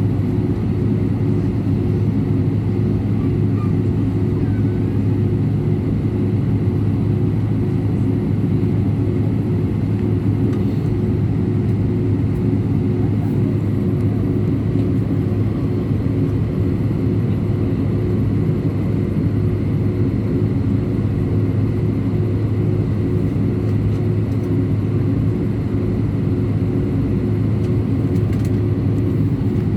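Steady engine and air noise of an Airbus A319 airliner heard inside the passenger cabin, a constant low drone that holds level throughout.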